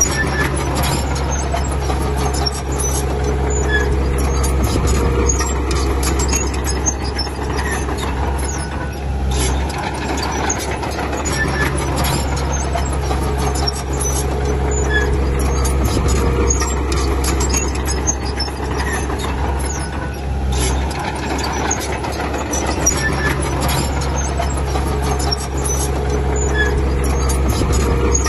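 Diesel engines of heavy earthmoving machinery running steadily. The engine note changes in a repeating cycle roughly every ten seconds, with a constant patter of short clicks and clatter.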